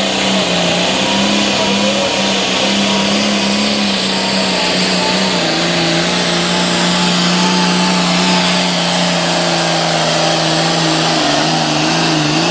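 A pulling tractor's engine running hard at steady high revs under load, its pitch dropping a little about halfway through as it lugs down.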